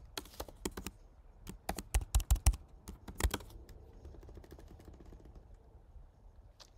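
Keystrokes on a computer keyboard: a quick run of taps over the first few seconds, with a louder cluster about two seconds in, then only a stray keystroke near the end.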